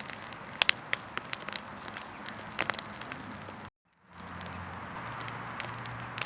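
Freshly lit campfire crackling, with scattered sharp snaps and pops over a soft hiss as the kindling catches. The sound cuts out completely for a moment a little before four seconds in.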